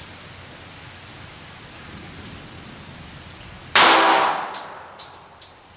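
A single 9mm pistol shot from a Glock 19 firing a Winchester 147-grain Bonded PDX1 hollow point into a ballistic gel block, about four seconds in, its echo dying away over about a second, followed by a few faint clicks. Before the shot, a steady hiss.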